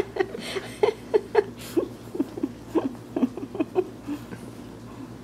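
Maltese puppy giving a quick run of short, sharp yips while playing, thinning out near the end.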